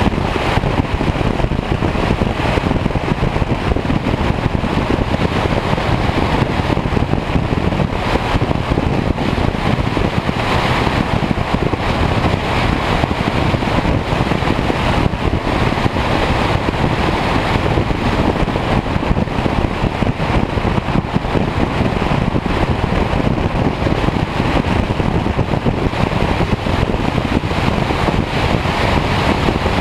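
Buick Regal T-Type cruising steadily at road speed: constant wind rush over a microphone mounted outside on the door, over low road and tyre noise.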